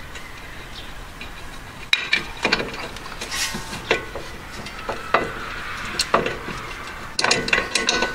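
Irregular metal clinks and knocks of a nut, washer and hand tools being worked onto a coilover mounting bolt, starting about two seconds in and clustering near the end.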